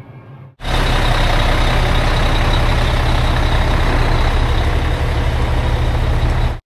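Heavy diesel engine running steadily close by, a loud deep rumble with a thin steady high whine above it. It cuts in suddenly about half a second in.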